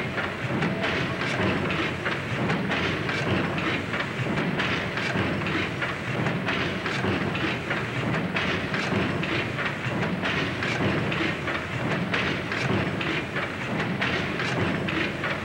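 Large stationary steam pumping engine running, with a steady rumble and a constant rhythmic clatter and knocking of its moving parts.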